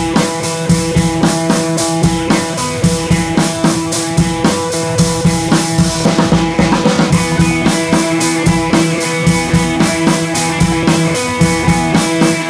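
Background music with a drum kit keeping a steady beat, about two beats a second, over held instrumental tones.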